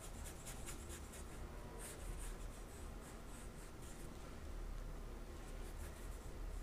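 Faint, irregular swishing of a paintbrush stroking paint onto paper, over a low steady hum.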